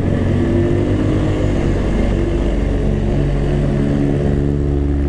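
Motorstar Easyride 150N scooter's 150cc engine running steadily under throttle on an uphill climb, its note shifting slightly about three and four seconds in.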